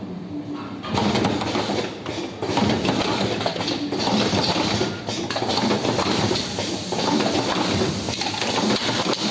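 Semi-automatic upright cartoning machine running, a steady dense mechanical clatter of many small clicks and knocks that gets louder about a second in.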